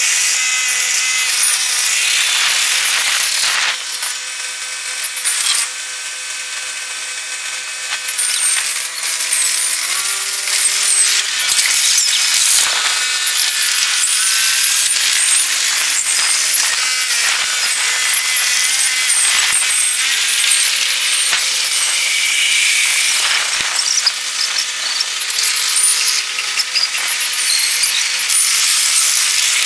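Zoomlion QUY70 crawler crane's tracks and engine while it crawls onto a lowboy trailer, played back about eight times fast, so they come out as a fast, high-pitched mechanical chatter and clatter. It is somewhat quieter for a few seconds about four seconds in.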